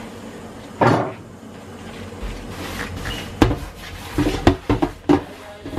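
A black metal hob ring knocking and clattering against a stainless steel sink as it is scrubbed with a scourer, over a running tap. There is one knock about a second in and a quick run of knocks near the end.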